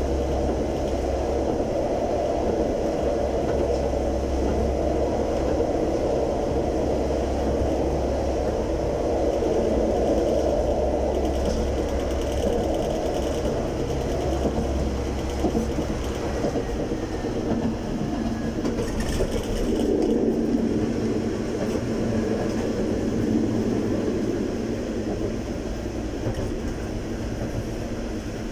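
Konstal 105Na tram running along the track, heard inside the driver's cab: a steady rumble of wheels on rail with a low motor hum. A faint falling whine comes in about halfway through, and the running noise eases a little near the end.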